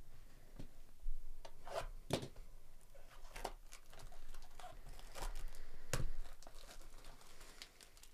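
A 2024 Topps Series 1 Baseball blaster box being handled and torn open by hand: a run of irregular rips and rustles, the sharpest about one, two and six seconds in.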